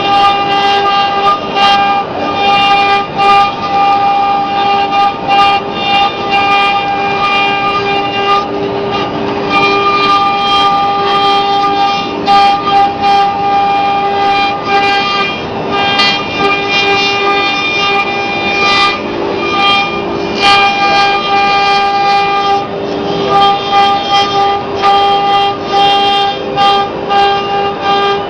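CNC router spindle running with a steady high whine while the bit carves a 3D relief, with irregular cutting knocks and clatter throughout.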